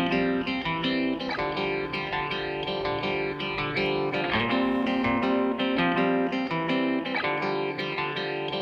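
Background music: a light plucked guitar tune with a steady beat.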